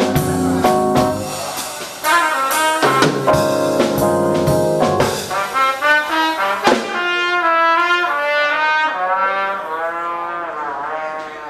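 Live jazz quartet of trumpet, electric bass, drums and keyboard playing, with sharp cymbal and drum strokes under the trumpet. About seven seconds in the drums and bass drop out and the trumpet plays on alone, a wavering, bending line that slowly fades.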